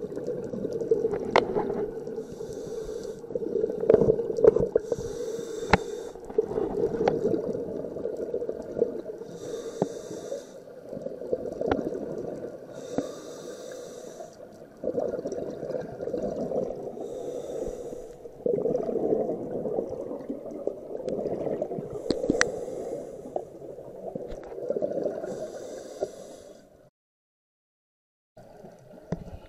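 Scuba diver breathing through a regulator underwater, heard muffled through the action camera's waterproof housing: short hisses about every three seconds over a steady bubbling rumble, with scattered clicks. The sound cuts out for about a second and a half near the end.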